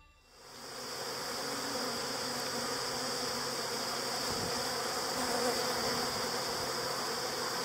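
Honeybees at a hive entrance buzzing in a steady, even hum that fades in over the first second.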